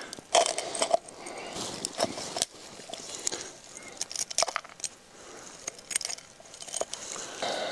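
Knife blade scraping spruce pitch off the bark into a tin can: irregular scrapes with metallic clinks of the blade against the can.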